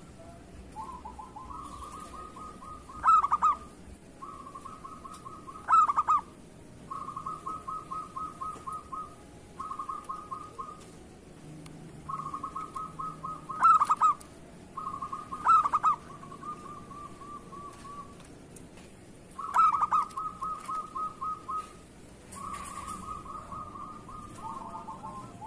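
Zebra dove (perkutut) singing: about eight phrases of fast, staccato rolling coos, each lasting a second or two with short pauses between. Several phrases carry a louder, sharper note.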